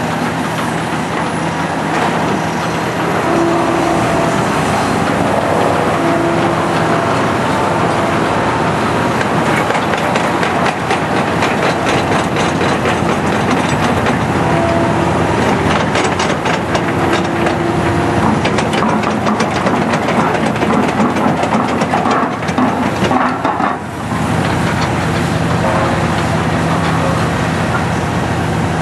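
Hydraulic excavator's diesel engine running steadily, rising in speed about three seconds in, with short hydraulic whines as the arm works. Scrap iron clatters and clanks repeatedly, most densely in the middle, as it is picked out of the rubble with a magnet.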